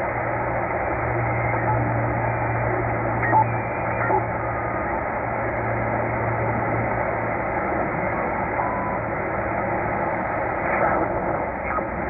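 Tecsun H-501x shortwave receiver in upper sideband being tuned up through the 20-metre amateur band: steady static hiss with brief whistling tones that come and go as the dial passes signals. A low hum underneath fades out about seven seconds in.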